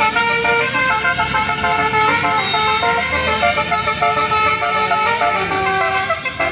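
Bus telolet (basuri) horn playing a tune: several horn tones sounding together, stepping from note to note, over the low rumble of the vehicle.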